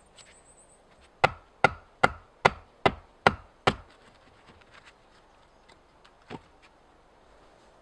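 Wood knocking on wood: seven sharp, evenly spaced strikes, about two and a half a second, then a few light clicks and one more knock as a log is set down near the end.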